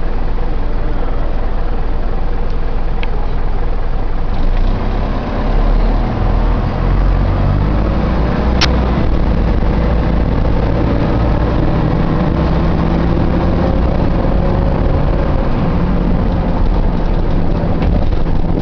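Optare Solo single-deck bus running, its engine rumbling steadily with a faint whine that wavers a little in pitch over it. A single sharp click about halfway through.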